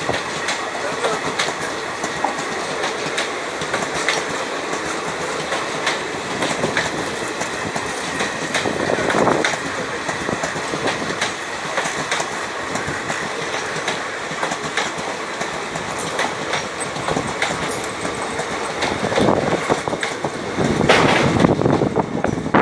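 A train running on the track, its wheels clattering over the rail joints against a steady rushing noise, with louder swells about nine seconds in and near the end.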